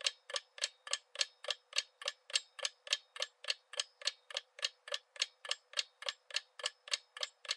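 Clock-ticking sound effect marking a countdown timer: sharp, even ticks at about three and a half a second.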